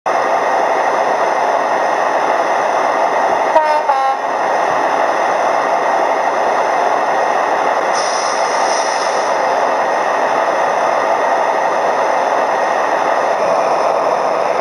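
ESU DCC sound decoder in a model HST power car playing a recorded HST diesel engine sound, running steadily. A short two-tone horn sounds, falling from the high note to the low, about three and a half seconds in, and a brief high hiss follows about eight seconds in.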